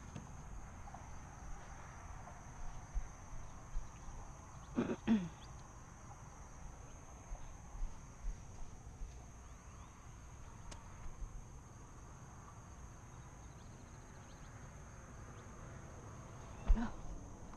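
Steady high-pitched drone of crickets, with scattered knocks and clunks of the kayak and its gear being handled: a loud double clunk with a short creak about five seconds in, and a sharp knock near the end.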